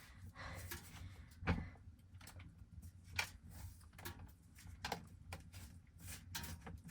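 Scattered small knocks, clicks and rustles of things being handled, with one sharper knock about a second and a half in, over a steady low hum.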